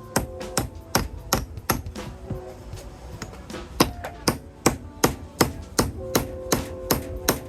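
A steady run of sharp hammer blows, about two to three a second, driving a wooden wedge into the top of a new hickory hammer handle to spread it tight in the head's eye.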